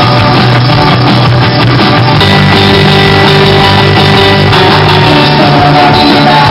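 Loud live rock band playing through a stage PA, with electric guitar, bass guitar and drums.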